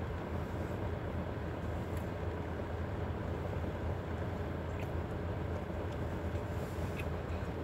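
Steady low rumble inside a car's cabin, with a few faint ticks about two, five and seven seconds in.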